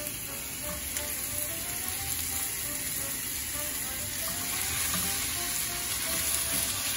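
Raw ground turkey sizzling steadily in hot olive oil in a nonstick frying pan as more of it is laid in.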